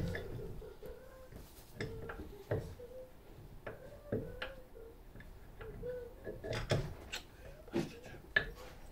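Scattered light clicks and knocks of metal parts and hand tools as bolts and washers are fitted to a car's front suspension at the hub and brake disc.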